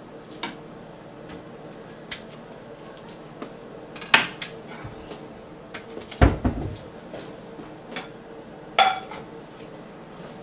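Kitchen knocks and clinks as a chef's knife and utensils are set down and handled on a wooden cutting board: about five sharp knocks spread out, one dull heavy thump about six seconds in, and a clink with a brief ring about nine seconds in.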